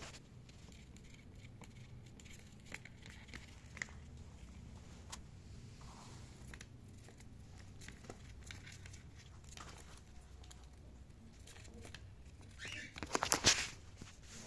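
Faint scattered clicks and crinkly rustling, with a louder burst of crackling rustle about 13 seconds in.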